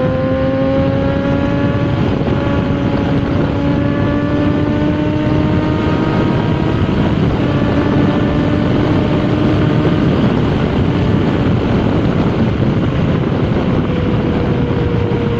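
Motorcycle engine pulling at road speed, its pitch rising a little at first and then held steady, under heavy wind noise on the microphone; the engine tone grows fainter in the second half.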